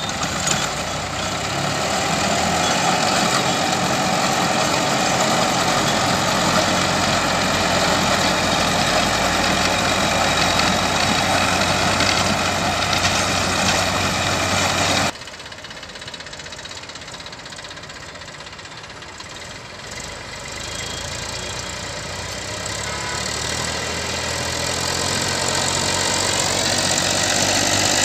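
Massey Ferguson 245 DI tractor's three-cylinder diesel engine running steadily under load while pulling a rotavator through the soil. About halfway through it drops suddenly to a quieter level, then grows louder again toward the end as the tractor comes closer.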